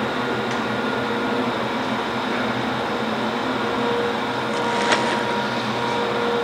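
Steady mechanical hum of workshop machinery, with several constant tones running through it and a light click about five seconds in.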